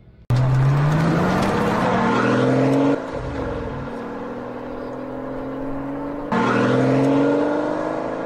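Recorded car engine revving sound played back. The engine note starts abruptly and climbs steadily for about three seconds, cuts to a lower steady running note, then climbs again about six seconds in.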